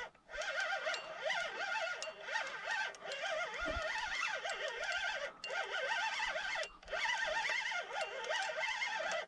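Fishing reel being cranked to bring in a hooked channel catfish. Its gears give a whirring whine that wavers in pitch as the handle speed changes, with a couple of short pauses.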